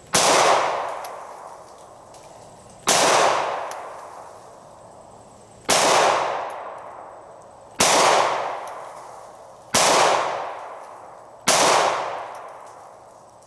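Glock 43 9mm pistol fired in slow, aimed single shots: six sharp reports two to three seconds apart. Each one rings out and fades over about a second.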